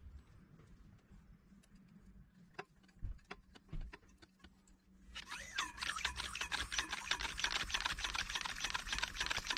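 Homemade hand air pump built from a car shock absorber, its hose on a bicycle tyre valve. A few light clicks come as the hose is handled, then about five seconds in a fast, dense rattling hiss starts as the pump is worked to inflate the tyre.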